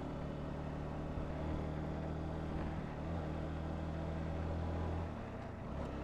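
Honda CBR125's single-cylinder four-stroke engine running at a steady cruising speed under road and wind noise. The engine note eases off about five seconds in.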